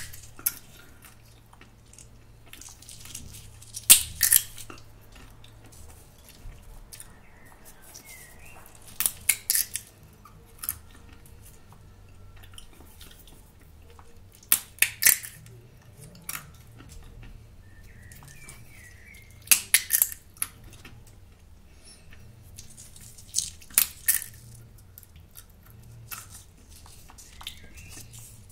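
Roasted, salted sunflower seeds in their shells being cracked open, in short clusters of sharp cracks every four to five seconds.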